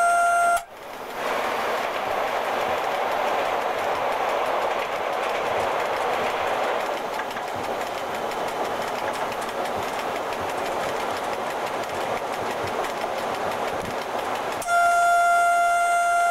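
Running noise in the cab of an FS E.656 electric locomotive at speed: a steady rushing of wheels on track. A loud, steady single-pitched warning tone sounds at the start, cuts off abruptly about half a second in, and sounds again near the end.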